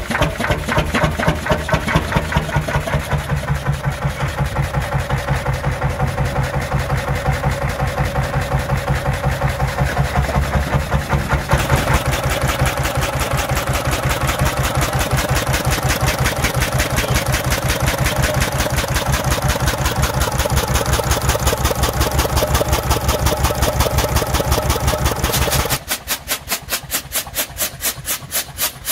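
Storebro Samson 35 HP single-cylinder two-stroke hot-bulb oil engine running with a steady, even beat of firing strokes. Near the end the deep rumble drops away and the beat sounds thinner and sharper.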